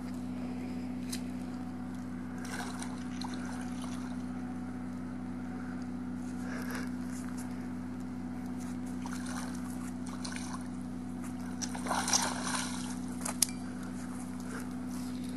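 Water splashing and sloshing in short irregular bursts, the loudest a cluster about twelve seconds in with a sharp splash just after, over a steady low hum.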